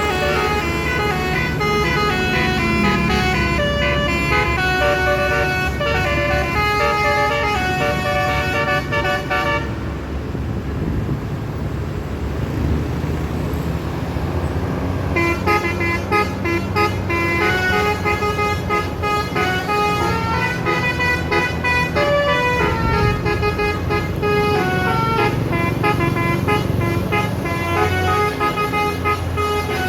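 Basuri musical air horn with top-mounted trumpets playing a telolet tune in quick stepped notes, heard from inside the bus over the steady drone of its engine. The horn breaks off about ten seconds in, leaving only the engine for about five seconds, then starts playing again.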